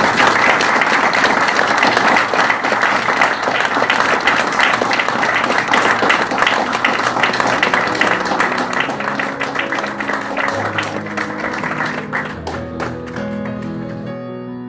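Audience applauding, slowly dying away and stopping near the end. Piano music comes in underneath about halfway through and carries on as the clapping ends.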